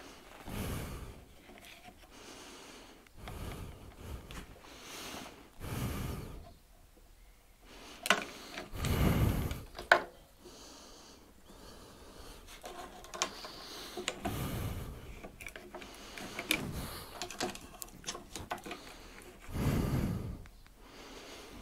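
A person breathing out through the nose close to a clip-on microphone, a soft breath every few seconds, with a few sharp clicks and knocks about eight and ten seconds in.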